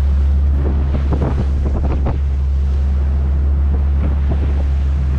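Motor boat's engines running steadily under way, a constant low drone, with wind buffeting the microphone and water rushing past the hull.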